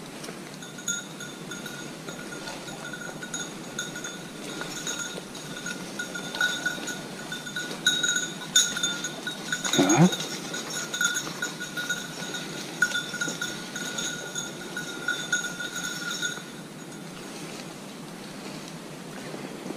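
A hunting dog's bell jingling steadily as the setter works through the undergrowth, cutting out about three-quarters of the way through. A brief sound sweeping up in pitch cuts in at about the midpoint.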